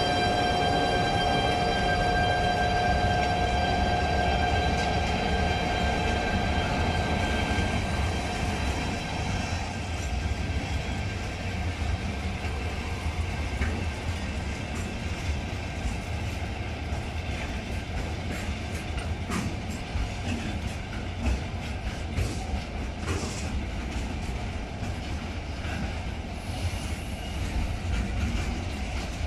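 A freight train rolling past. For the first eight seconds or so the passing locomotive gives a steady whine of several pitches over a low rumble. The whine then fades, leaving the rumble of the wagons and containers with scattered clicks and clacks of wheels over the rails.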